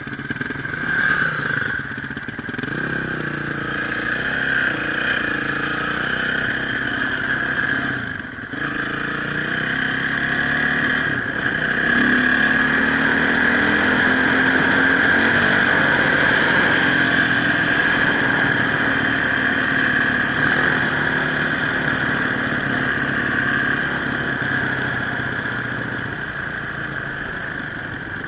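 Enduro motorcycle engine running under way, its pitch rising and falling with the throttle in the first few seconds, then louder and steadier from about twelve seconds in.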